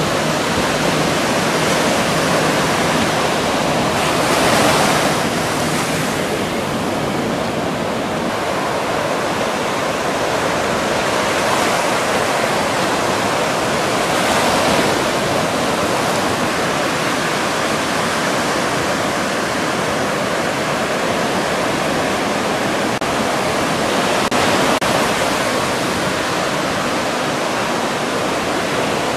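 Ocean surf washing steadily, with louder swells of breaking waves roughly every ten seconds.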